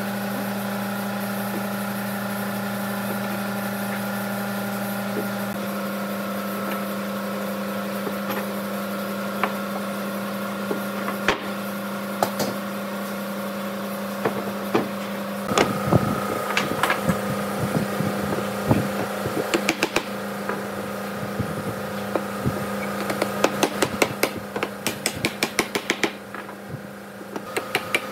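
Pine panel being taken out of metal pipe clamps on a wooden workbench: scattered knocks and clicks of wood and metal, then a quick run of ticks, over a steady machine-like hum.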